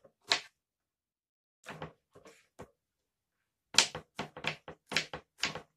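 Knife chopping pineapple on a wooden cutting board: a few separate cuts, then a quick run of about ten chops near the end.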